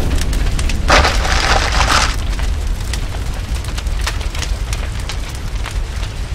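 Intro sound effects: a deep, steady boom-like rumble, with a loud rushing burst about a second in lasting about a second, then sharp fire-like crackles scattered over the rumble.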